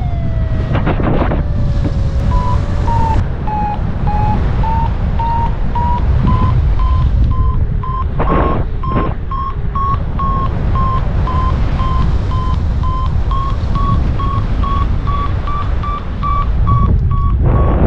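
Wind buffeting the microphone in flight under a paraglider, with a variometer beeping about twice a second from about two seconds in. Its pitch wavers and rises slightly, the beeping tone that signals the glider is climbing in lift.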